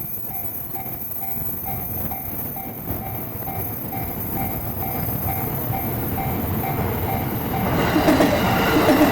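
Japanese level-crossing warning signal ringing in a steady repeated beat, a little over two strikes a second, while the rumble of an approaching E235-series Yamanote Line commuter train grows louder. About eight seconds in the train reaches the crossing and its wheel and rail noise swamps the bell.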